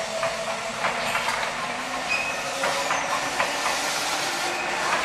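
Tobu 10030 series electric commuter train running slowly over points and rail joints: the wheels click and clatter unevenly over a steady rumble, with a faint motor whine slowly rising in pitch.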